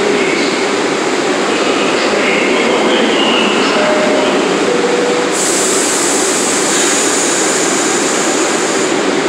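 Loud, steady rumble of subway trains in an underground station, with several brief squeals of steel wheels. About five seconds in, a high hiss starts suddenly and runs for about three and a half seconds before cutting off.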